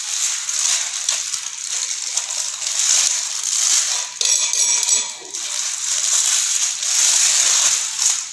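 Scratchy metal-on-ceramic rubbing and light clinking as a nut is turned by hand onto a basin mixer's brass fitting through the tap hole of a ceramic wash basin, with a short ringing metallic clink about four seconds in.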